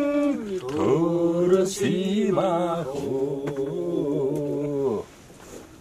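Mongolian folk song being sung, its final line drawn out in long held notes and ending about five seconds in.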